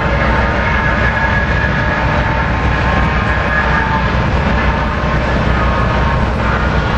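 Steady low drone and rumble of a lake freighter's engine passing on the river.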